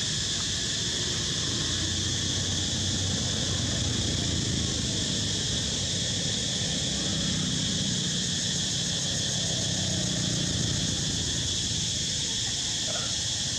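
Steady chorus of insects: a continuous high buzz that holds without a break.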